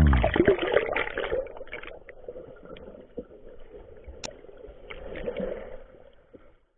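Water running and splashing, loudest in the first second or so, then fading to a faint wash with a few small clicks.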